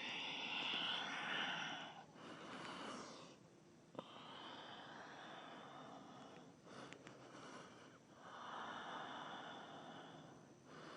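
Slow, deep breaths close to the microphone: soft hissing inhales and exhales, each a couple of seconds long, with short pauses between them.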